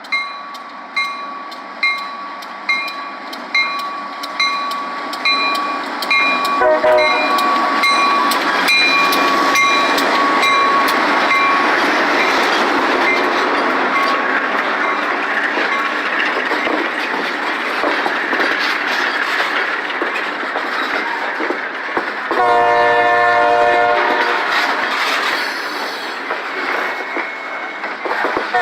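Train led by a GE B23-7 diesel locomotive going by. A bell rings about once a second at first. A short horn blast comes about 7 seconds in, then the steady rumble of the train passing with wheels clicking over the rail joints. A horn blast of about two seconds comes near the end.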